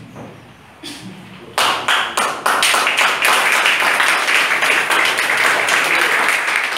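A room of a couple dozen seated people breaking into applause about one and a half seconds in, many hands clapping at once.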